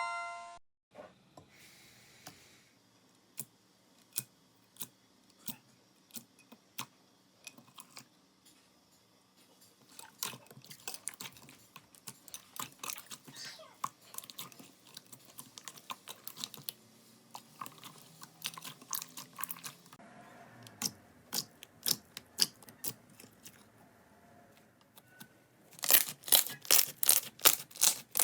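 Slime being pressed and squeezed by hand, making irregular sticky clicks and crackling pops. They come sparse at first, thicker from about ten seconds in, and as a fast run of loud pops near the end.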